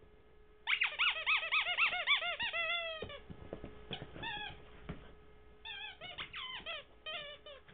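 Squeaky plush dog toy squeaking again and again as a chocolate Labrador puppy chomps on it: a fast run of squeaks about four to five a second starting just under a second in, a couple more after a pause, then another quick run near the end.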